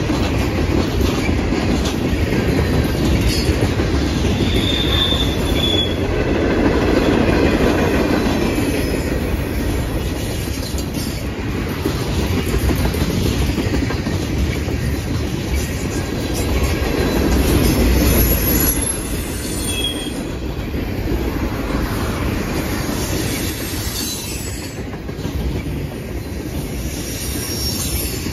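Freight train of tank cars rolling past: a steady rumble of steel wheels on rail, with brief high wheel squeals about four to five seconds in and again around twenty seconds.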